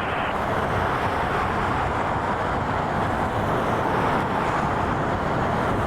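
Boeing 787 Dreamliner's jet engines running, a steady, loud rushing noise that holds level throughout.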